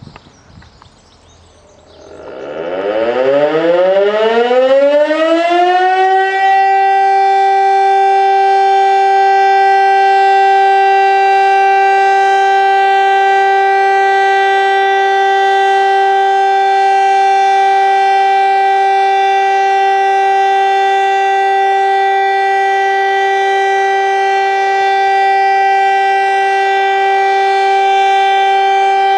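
VEM Grünhain DS977 electric motor siren starting up: about two seconds in it winds up with a rising pitch, and by about six seconds it reaches its full steady tone of about 384 Hz, which it holds with many overtones.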